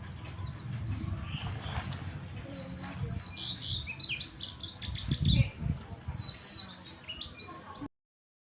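White-eye (pleci) twittering continuously in rapid, high chirps and short sliding notes, the steady 'ngriwik' call. There is a low rumble underneath and a loud low thud about five seconds in, and the sound cuts off abruptly near the end.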